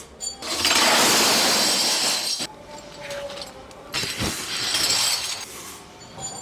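Workshop noise: a loud rushing noise lasting about two seconds, followed by rattling and clinking of hard pieces.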